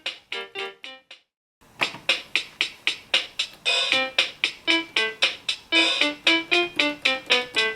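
Anpanman toy electronic keyboard playing a pop tune in quick, even notes with chords. It breaks off briefly about a second in, then starts again.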